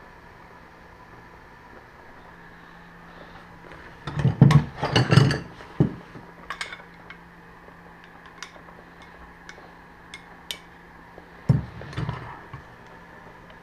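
Metal hand tools clinking and rattling together as sockets are handled and picked out, in two short clusters of clatter with scattered single ticks between.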